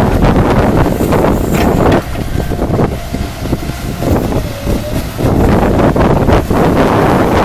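Liebherr 934 tracked excavator's diesel engine and hydraulics working as the bucket digs into the ground. The engine eases off about two seconds in, with a faint steady whine, then pulls hard again a little after five seconds.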